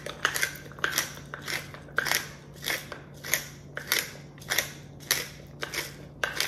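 Twist-top pepper mill grinding whole black peppercorns: a dozen or so short grating strokes at an even pace, a little under two a second.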